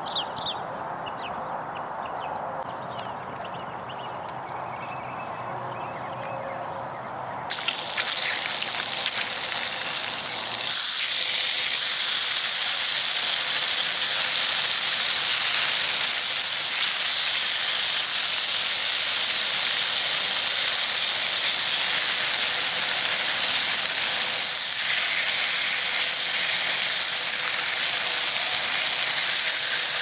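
Bacon sizzling in a cast-iron skillet over a campfire: a loud, steady hiss that starts suddenly about seven seconds in and grows louder a few seconds later. Before it, a few faint bird chirps.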